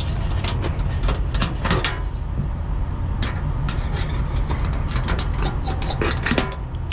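Irregular metal clicks and clinks as a wrench works the adjustment nuts loose on a T-handle toolbox door latch, over a steady low rumble.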